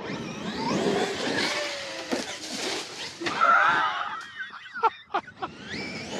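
Radio-controlled Traxxas monster trucks driving on a dirt track, their motors' pitch rising and falling with the throttle over the noise of the tyres. A few sharp knocks come about five seconds in.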